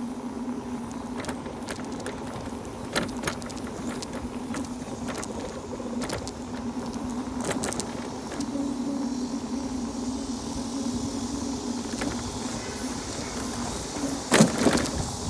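Electric bike's motor humming at a steady pitch while riding, with scattered rattles and clicks from the bike over the road surface and one louder knock near the end.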